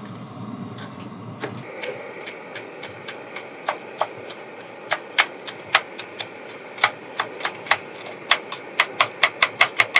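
Chef's knife chopping green onions on a cutting board: sharp knocks of the blade striking the board, a few spaced out at first, then quickening to about five a second near the end.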